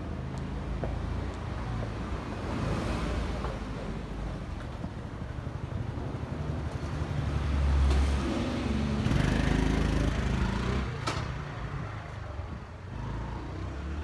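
Street traffic noise with a motor vehicle passing, loudest about eight to ten seconds in, and a sharp click shortly after.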